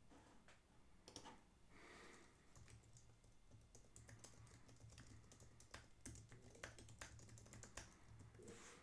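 Faint computer keyboard typing: irregular key clicks, several a second, with a low hum underneath from about three seconds in.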